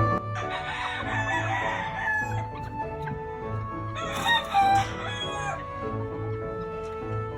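Gamefowl rooster crowing twice, the second crow about four seconds in, over background music with a steady beat.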